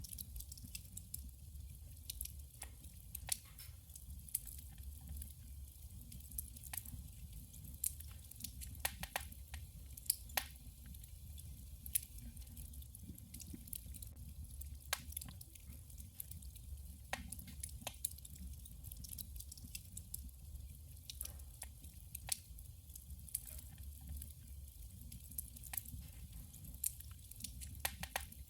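Wood fire burning in a wood stove: irregular sharp crackles and pops, a few a second, over a steady low rumble of the burn.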